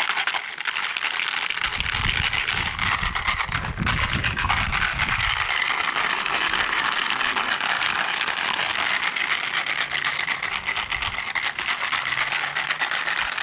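Marbles rattling steadily inside a small plastic tiller gas tank being shaken with CLR cleaner to scour out old fuel residue, a dense stream of rapid clicks. About two seconds in, a lower rumble joins for a few seconds.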